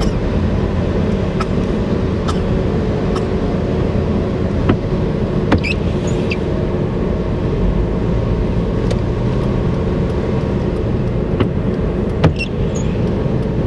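Steady engine and tyre rumble from inside a car driving on a wet road, with scattered sharp ticks.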